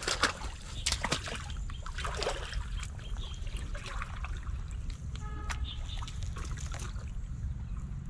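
Muddy pond water splashing and sloshing as a man steps in and wades until he is chest-deep, with the sharpest splashes in the first second or so. A steady low rumble runs underneath.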